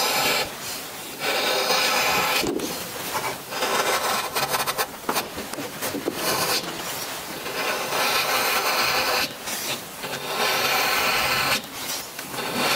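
A sharp chisel slicing thin shavings off the end grain of a wood block, in repeated dry scraping strokes about a second long with short pauses between.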